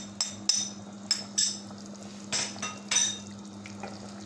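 A plate knocked repeatedly against the rim of a metal cooking pot to shake off the last ground spice powder: a series of sharp, irregular clinks and knocks, some in quick pairs, over a steady low hum.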